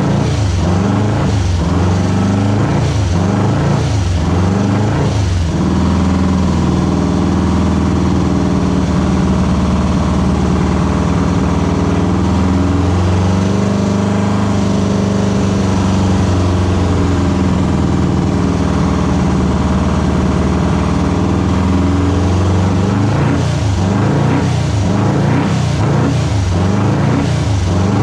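Volkswagen air-cooled flat-four engine of a Kadron dune buggy running loud: revved up and down for the first several seconds, held at a steady speed through the middle, then revved up and down again near the end.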